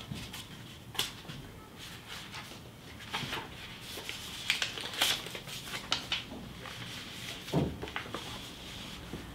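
Paper pages of a paperback book being leafed through and handled, with short scattered rustles and flicks.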